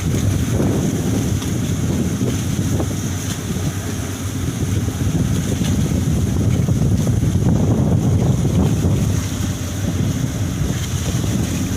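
Strong wind buffeting the microphone: a loud, gusting low rumble that swells and eases, with a faint steady high hiss above it.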